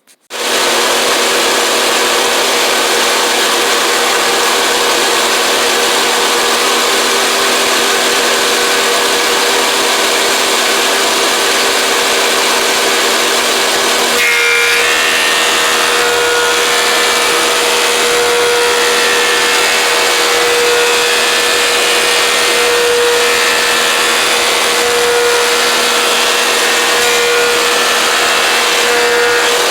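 Thickness planer running and planing a glued-up wooden panel flat. It gives a loud, steady whine, and its tone shifts about fourteen seconds in.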